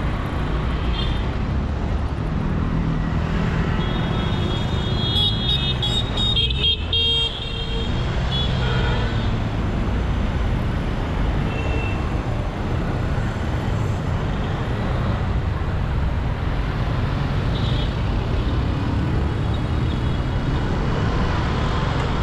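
Busy city street traffic heard from a moving vehicle: a steady low rumble of engines and tyres, with short vehicle horn toots, a cluster of them about five to seven seconds in and more near the end.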